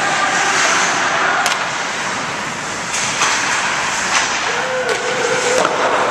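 Ice hockey play: a steady hiss of skates scraping the ice, broken by about five sharp clacks of sticks and puck, with a short held shout near the end.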